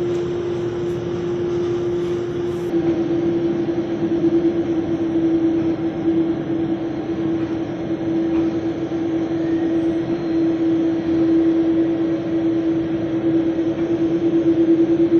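Jet airliner engines on the apron: a steady hum that holds one pitch over a broad rushing noise, pulsing rapidly from about three seconds in.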